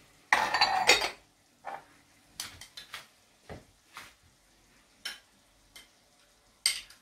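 A metal spoon clinking and scraping against a small glass jar and a frying pan as tomato paste is scooped out and knocked off into the vegetables. A dense rattling clatter comes about half a second in, then a series of separate sharp clinks.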